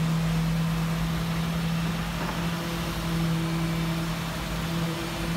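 Concrete mixer truck and concrete vibrator running during a concrete pour: a steady mechanical hum over a low rumble.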